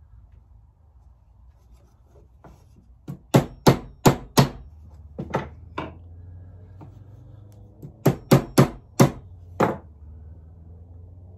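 Small hammer striking the sterling silver ring band, sharp strikes in three quick bursts, knocking the ring's two filed ends together to close the seam flush and tight for soldering.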